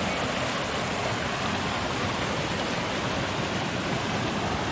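Steady rush of flowing creek water, an even unbroken hiss.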